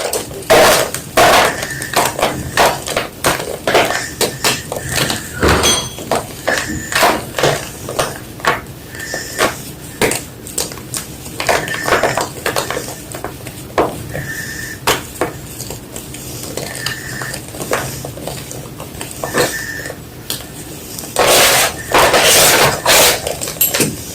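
Block of white gym chalk being crunched and crushed: irregular sharp crunches and snaps, a few a second, with a denser, louder run of crunching near the end.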